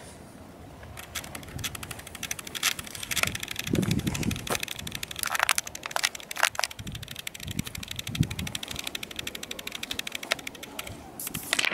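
Footsteps crunching on a dry, stony hillside trail, with dry grass and brush crackling against legs: irregular sharp crackles and a few duller thuds.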